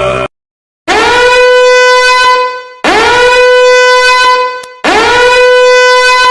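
Three identical blasts of a blown horn sound effect, each scooping up into one steady held tone for about two seconds.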